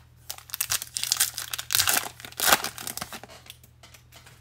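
Crinkly plastic wrapper of a 2021 Bowman baseball card pack being torn open and crumpled, a run of crackling rustles that peaks about two seconds in and dies down after three.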